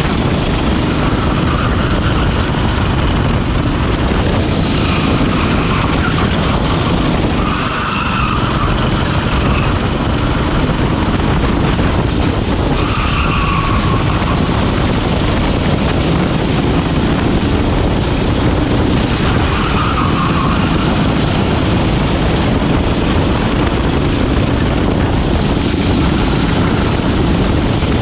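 Rental racing kart's engine running hard through a lap, heard onboard; the engine note eases briefly about eight seconds in. Several short squeals from the tyres cornering.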